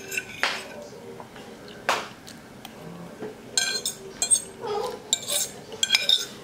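Metal fork scraping and clinking against a ceramic plate while food is scooped up: scattered short clicks and scrapes, busiest in the second half.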